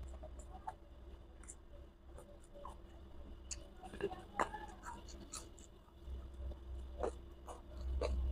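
Close-miked eating by hand: scattered small clicks and scratchy rustles of fingers gathering rice and sambal from a banana leaf, with chewing, and a short cluster of louder clicks about four seconds in.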